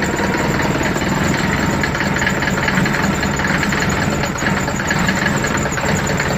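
Mercedes-Benz OM601 four-cylinder diesel idling with a hard, steady knock. The owner has secured the engine mounts, and says it smooths out with a little throttle.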